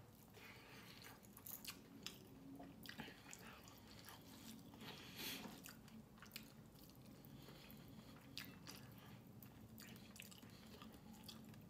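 Faint close-up chewing of rice and chicken adobo, with soft irregular wet mouth clicks.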